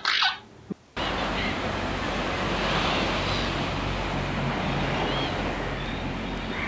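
A short bird call ends in the first second, then about a second in the sound cuts abruptly to a steady outdoor rushing noise, with a few faint bird chirps above it.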